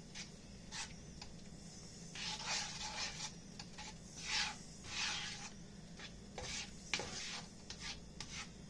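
Spatula scraping and stirring egg and rice around a frying pan: a run of rasping scrapes in the middle, with scattered light knocks before and after.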